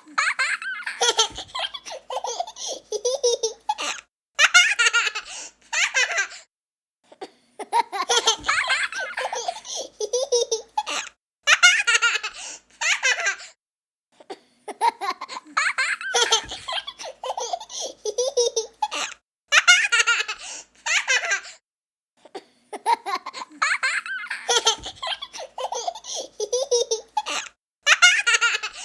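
A young child laughing: runs of high giggles and belly laughs broken by short pauses, the same stretch of laughter repeating about every eight seconds.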